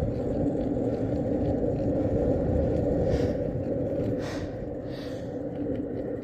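Skateboard wheels rolling steadily over pavement, a continuous low rumble.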